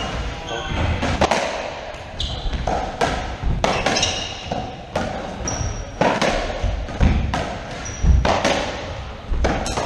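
Racquetball rally: the ball hits the racquet strings and the court walls in sharp cracks every second or so. Athletic shoes squeak briefly on the wooden floor between the hits.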